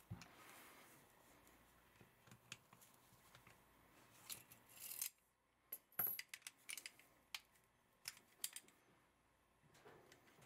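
Faint metal clicks and light scrapes of a Colt Combat Commander 1911 pistol being taken apart by hand as the recoil spring and guide rod are drawn out and set down. The sharpest click comes about six seconds in.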